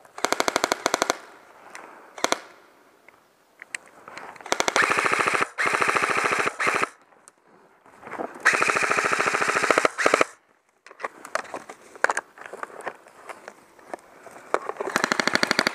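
Airsoft guns firing rapid full-auto bursts, about five of them lasting one to two seconds each, with short pauses between.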